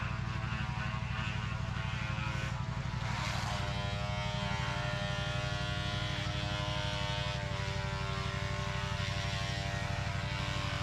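An engine running steadily with a fast, even pulse, and a whining tone above it that shifts in pitch around the middle.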